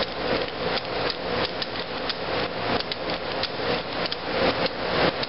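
Heritage Rough Rider single-action revolver being worked by hand: a run of about fifteen sharp metallic clicks, irregularly spaced, as the hammer is cocked and the cylinder turned.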